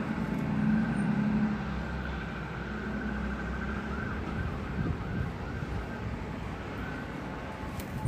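Distant emergency-vehicle siren holding a thin high tone, wavering a little, over a steady low rumble of traffic.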